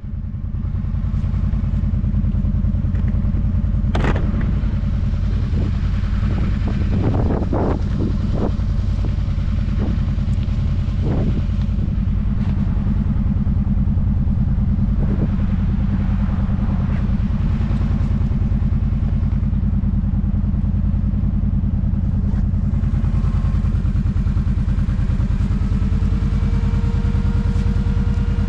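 Kawasaki Brute Force 750 ATV's V-twin engine running steadily while riding, with scattered knocks and clatter in the first half. A faint whine comes in and rises slightly near the end.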